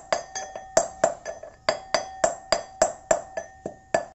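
Metal pestle pounding hibiscus flowers in a metal mortar: rhythmic strikes, about three a second, each with a short metallic ring.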